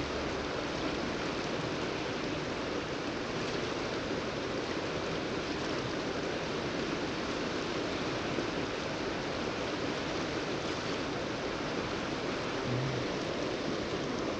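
River water rushing steadily, an even hiss with no pauses.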